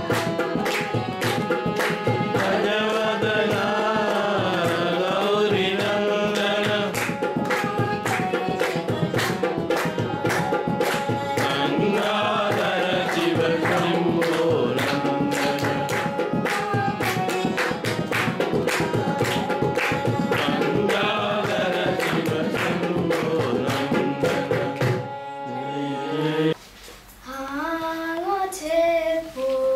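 Devotional bhajan: voices singing with a steady, dense tabla accompaniment. About 25 seconds in the music breaks off, and a single girl's voice sings on its own, quieter.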